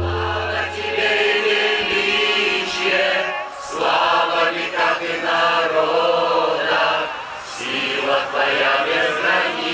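A congregation of many voices singing a hymn together in worship.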